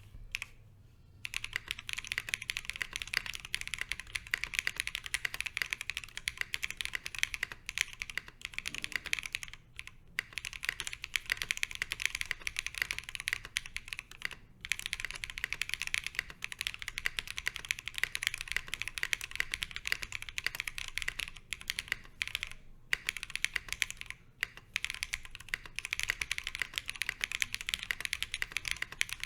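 Fast continuous typing on a Fox Lab Sunset 80 custom mechanical keyboard with a polycarbonate plate, lubed Zaku switches and Cat-profile PBT keycaps, built with case foam only. The typing starts about a second in and runs as a dense stream of key clacks, with a few short pauses.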